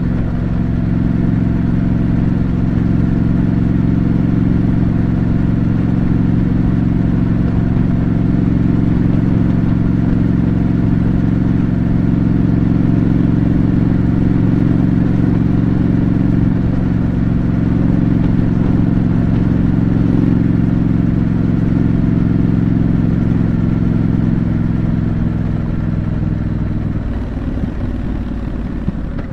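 2025 Triumph Scrambler 900's 900 cc parallel-twin engine on its stock exhaust, running steadily at an even cruise. Near the end the steady note fades and turns rougher as the throttle eases off.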